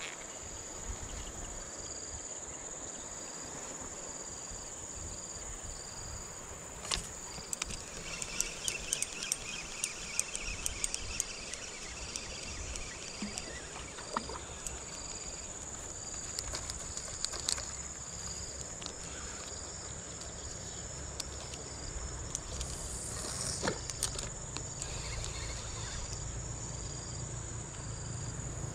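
Insects, cricket-like, calling steadily: a continuous high buzz with a shorter chirp repeating about one and a half times a second. A scattered run of sharp clicks and ticks comes about a third of the way in, and a low rumble creeps in near the end.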